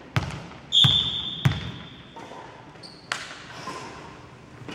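Volleyball bounced a few times on the sports hall floor, sharp knocks with a short ring in the hall, before the serve. A referee's whistle sounds once, a steady shrill tone about a second and a half long, signalling the serve.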